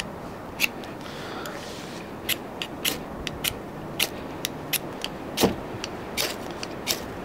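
Ferrocerium rod struck again and again with the spine of a CRKT Minimalist Bowie knife, about a dozen quick, sharp scrapes at uneven intervals, the loudest about five seconds in. The strikes throw sparks to light a wax-impregnated cotton ball.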